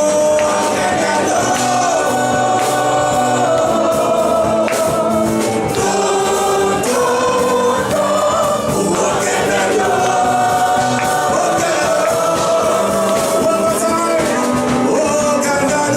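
Gospel choir and congregation singing over a live church band with drums and percussion, loud and steady.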